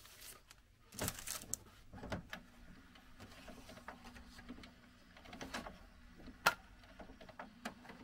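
Inkjet printer printing a thick vinyl sticker sheet: a faint steady motor hum with scattered clicks of the feed and carriage, the sharpest about six and a half seconds in.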